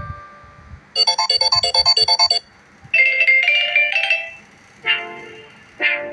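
Samsung Galaxy J7 Pro ringtones played one after another. A fast run of short repeated electronic notes lasts about a second and a half, then comes a short chiming melody. Near the end another tune starts with sharp, quickly fading notes.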